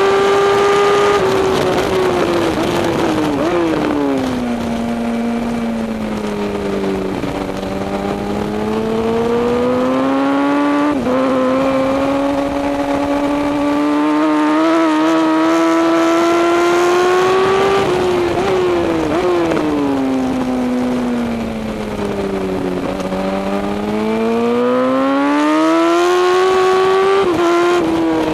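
Sports motorcycle engine heard from a camera mounted on the bike at track speed, its pitch climbing as it accelerates and falling in quick steps as it shifts down and slows for corners, twice, with a sharp drop at an upshift about eleven seconds in. Wind rush runs under the engine.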